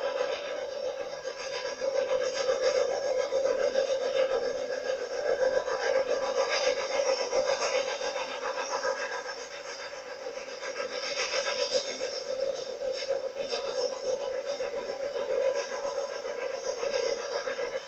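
Snowdon Mountain Railway steam locomotive No. 4, a Swiss-built 0-4-2 rack tank engine, working up a steep rack gradient with a coach of passengers: a quick, uneven run of chuffs.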